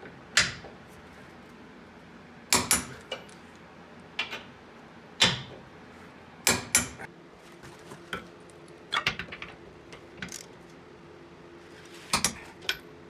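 Sharp metallic clicks and clacks from a click-type torque wrench and socket tightening trailer-hitch bolts to torque. About a dozen separate knocks come at irregular intervals, some in quick pairs.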